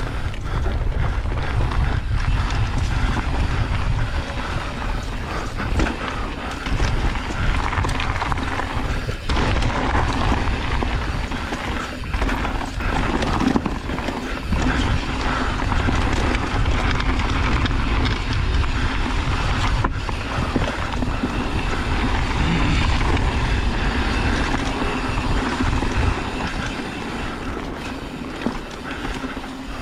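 Wind buffeting the microphone over a deep, steady rumble, with the rattle of a mountain bike rolling down a dirt trail.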